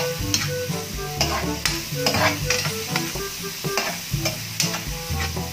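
Metal spatula stirring and scraping ground beef around a metal wok in irregular strokes, over the sizzle of the meat frying in oil and soy sauce. Background music plays underneath.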